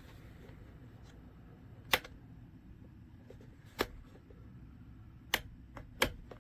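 Four sharp, irregularly spaced clicks over a low steady hum.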